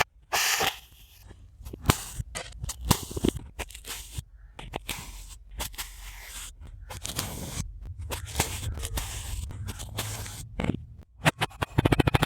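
Crunchy kinetic sand being cut and crushed: a rush of crackling near the start, then a run of irregular sharp crunches and clicks.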